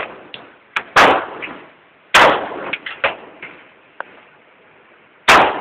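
Three gunshots, unevenly spaced: about a second in, about two seconds in, and near the end, each followed by a short decaying tail. A few light clicks fall between the shots.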